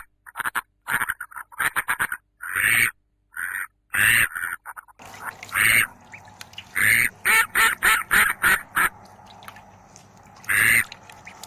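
Ducklings calling in short, repeated quacks, in quick irregular bursts of several calls a second with brief pauses between.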